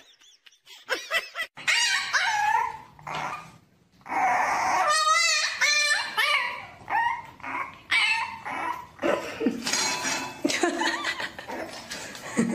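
French bulldog puppy whining and yipping in a string of short, high cries that rise and fall, with a fast wavering whimper about five seconds in.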